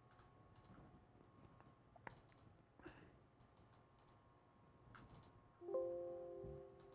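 Scattered faint computer mouse clicks, then, nearly six seconds in, a short chime of several held tones sounding together that starts suddenly and fades away over about a second.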